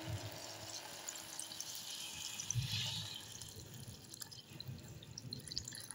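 Water being poured into a pressure cooker of raw rice and vegetables, a faint splashing trickle into the pot.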